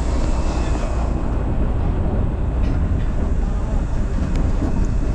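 Shonan Monorail suspended monorail car running, heard from inside the cab: a steady low rumble from the running gear on its track beam, with a few faint clicks in the second half.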